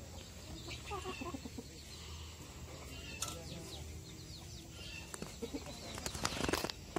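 Chickens clucking in short, repeated calls. Near the end comes a louder rough crackle, a spiny durian husk being prised apart by hand.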